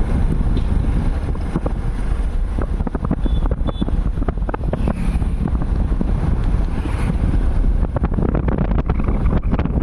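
Wind buffeting the microphone on a moving vehicle, over a steady low rumble with frequent small knocks and rattles.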